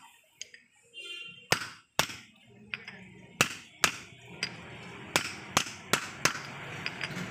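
Hammer blows on a steel drift, driving a new bearing onto the countershaft gear of a Maruti Suzuki Eco gearbox: about ten sharp knocks, coming faster in the second half.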